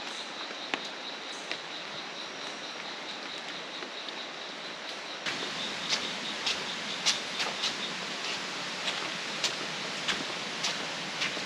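Rainforest ambience: a steady hiss with a faint, steady high-pitched tone over it. About five seconds in, the sound cuts to a louder hiss with scattered sharp ticks.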